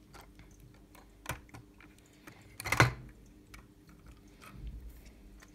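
Plastic building-brick toy truck being handled: small clicks and clatters of plastic parts as the cab is pulled off its trailer, with a louder clack about three seconds in.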